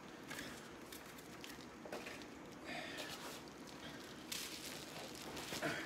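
Faint rustling and handling noises with a few light ticks, the sound of someone quietly handling things out of view.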